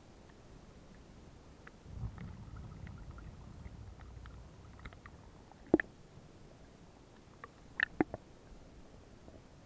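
Water heard through an underwater camera's housing: a low, muffled sloshing rumble for two or three seconds as the camera breaks the surface, then sharp knocks, one loud about six seconds in and a quick cluster of three about two seconds later.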